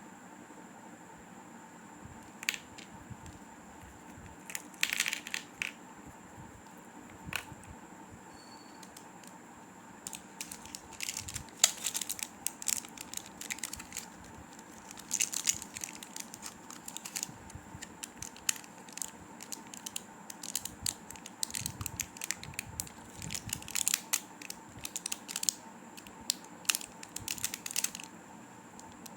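Plastic candy and chocolate wrappers being handled and torn open: irregular crinkling, tearing and clicking in bursts, starting a couple of seconds in and stopping near the end.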